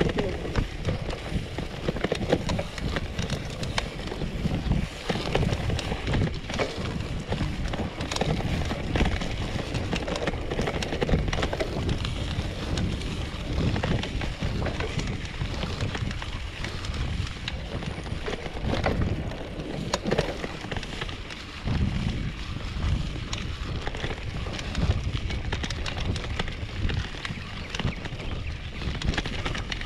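Polygon Bend R2 gravel bike ridden over a bumpy grass singletrack: a steady rough rumble of the tyres on the ground, with frequent knocks and rattles as the bike jolts over the bumps.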